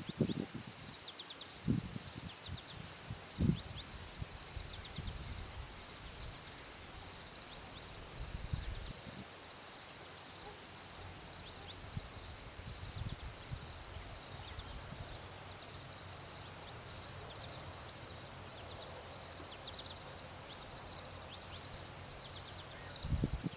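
Continuous insect chorus: a high, steady, finely pulsing buzz. A few low thumps come in the first few seconds and again near the end.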